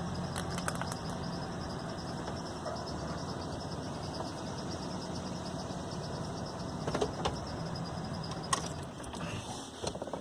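A vehicle's engine runs steadily at a low, even hum, with a few light clicks and rattles about a second in and again near the end.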